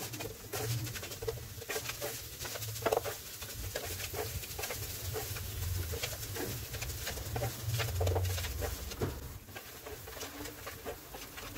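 Wooden spatula scraping and tapping irregularly against a nonstick frying pan as mawa and sugar are stirred and pressed over the heat, the sugar melting into the mawa. A low steady hum runs underneath.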